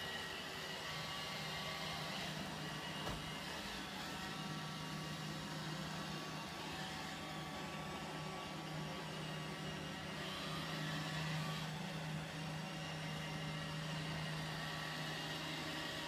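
iRobot Roomba 650 robot vacuum running over carpet: a steady low hum from its motor and brushes with thin, steady high whining tones over it, holding an even level throughout.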